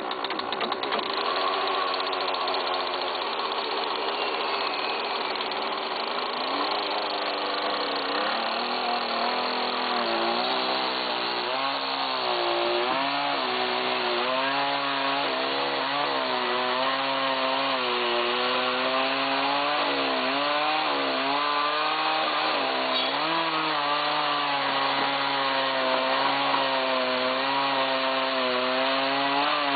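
Gas chainsaw running at high revs as it cuts down through stacked tulip poplar logs. From about ten seconds in, the engine pitch repeatedly dips and recovers as the chain loads up in the wood.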